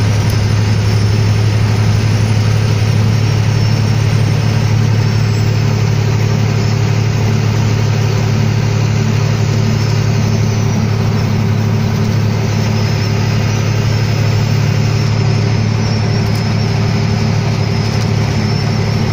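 Semi-truck's diesel engine running at a steady low drone while the truck climbs a grade, with road noise, heard inside the cab.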